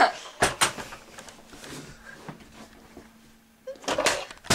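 Two sharp knocks about half a second in, then a quiet stretch, then a louder clattering bump of handling near the end.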